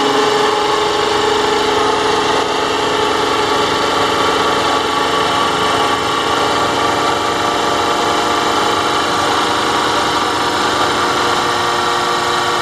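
Rebuilt brushed DC electric trolling motor running steadily after spin-up, a steady hum with several tones. Any rubbing in it the owner puts down to a small flake of metal stuck to one of the magnets brushing the rotor.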